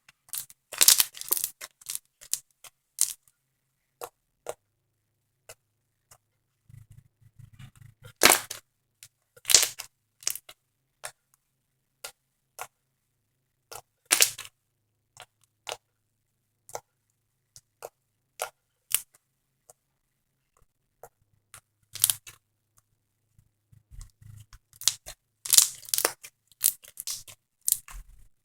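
Foam slime being squished and worked by hand, giving sharp crackling clicks and pops in irregular clusters with silent gaps between.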